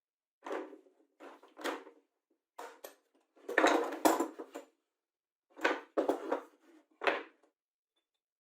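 Hard objects being handled on a work surface: six short bursts of clattering and scraping, with a couple of sharp knocks, the loudest a little over halfway through.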